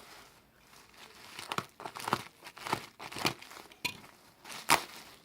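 Packaging being torn open and crinkled by hand: a series of short rustling, crackling tears, the loudest near the end.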